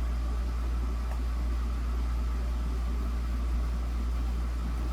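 Steady low hum with a faint steady whir above it, with one faint click about a second in.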